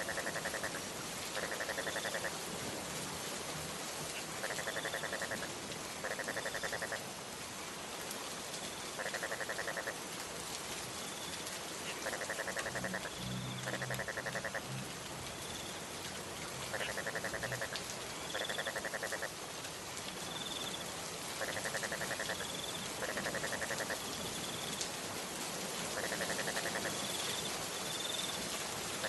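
Steady rain, with an animal calling over it: paired bursts of rapid, even pulses, each about a second long, repeating every few seconds.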